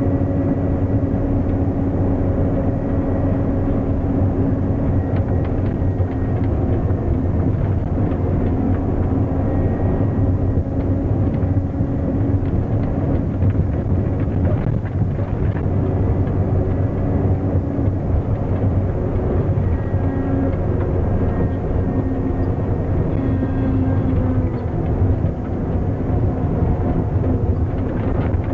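Kenworth C500 plow truck's diesel engine running steadily under load, heard from inside the cab, as the front plow blade pushes snow along the road.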